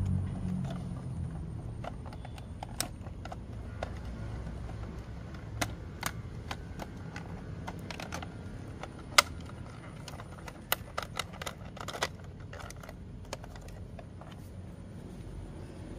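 Plastic toy bus handled and turned over by hand: scattered clicks and taps of hard plastic, with one sharp click about nine seconds in and a quick run of clicks a little later, over a steady low background rumble.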